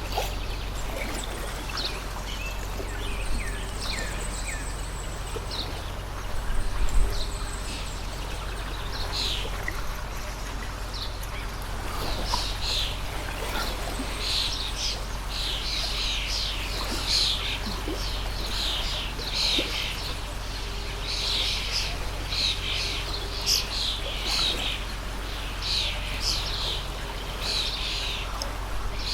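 Songbirds chirping and calling over the steady rush of a running stream; the bird calls grow denser about halfway through. A brief low rumble stands out about a quarter of the way in.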